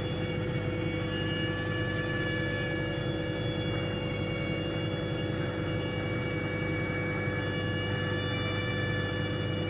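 Sweet potato in a running microwave oven, steam escaping through its skin in several thin, high whistles that slowly drift in pitch. Under them is the microwave's steady hum.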